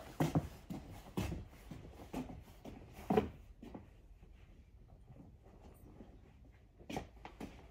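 Scattered knocks and clicks, the loudest about three seconds in, then a quieter stretch before a few more clicks near the end.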